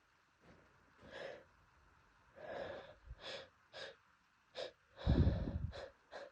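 A person's breathing during an allergy sneezing fit: a run of short, breathy gasping inhales and sniffs, then a louder, longer blast of breath through the nose about five seconds in.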